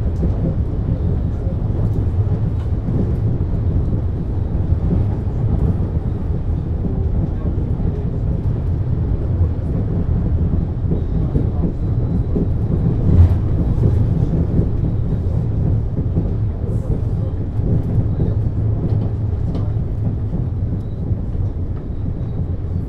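Wuppertal Schwebebahn MAN GTW 72 suspension railway car running on its overhead rail, a steady low rumble with one sharp knock about 13 seconds in.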